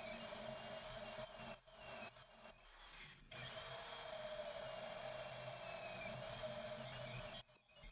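Electric drill with a half-inch bit boring into a metal-topped workbench, its motor running at a steady pitch and stopping briefly a couple of times as the trigger is let off.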